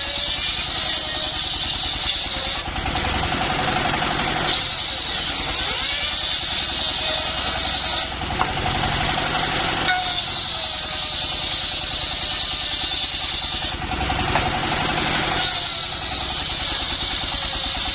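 Portable engine-driven sawmill sawing mahogany timber. The engine runs steadily throughout, and a high, hissing whine from the blade in the wood rises and drops away four times, each cut lasting a few seconds with short pauses between passes.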